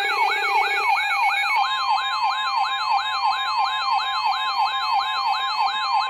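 Electronic emergency-alert siren: a fast yelp of rising sweeps, about three a second, layered with steady and beeping tones. A new steady tone joins about a second and a half in.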